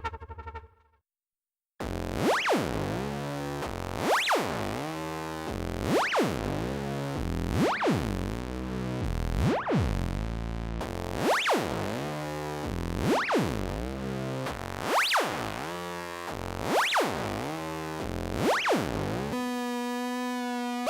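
Elektron analog synthesizer preset (Analog Four/Keys) playing a repeated chord-like patch, each hit with a sharp filter sweep up and back down about every second and three-quarters. It starts after a brief silence about two seconds in. Near the end the patch gives way to a steady held note.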